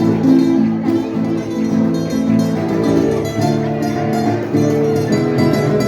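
Folk music played on plucked string instruments, with steady melodic notes and no singing.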